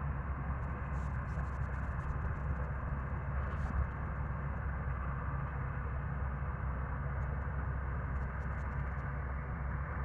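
Dhiman combine harvester running steadily while harvesting: a continuous low engine drone with machinery noise over it.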